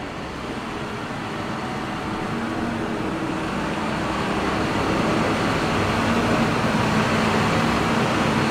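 A machine running steadily with a faint low hum, getting gradually louder over several seconds.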